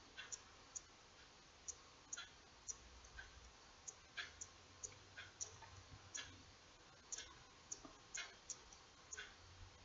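Faint, irregular clicking, about two clicks a second, of a small steel crochet hook and fingers working single crochet stitches in embroidery floss.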